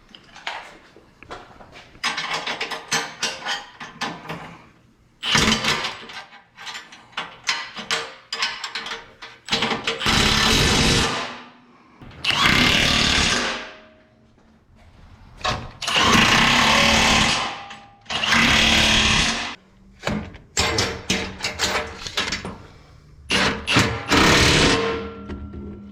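Power tool driving in the skid plate's mounting bolts: bursts of rapid rattling and several runs of one to two seconds that each wind down as the bolt seats.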